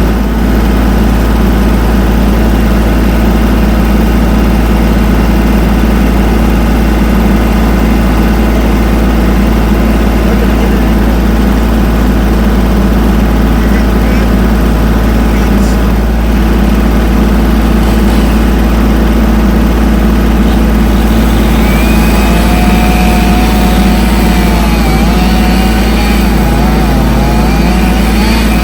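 An engine running steadily at a constant speed, joined about three-quarters of the way through by a faint wavering high tone.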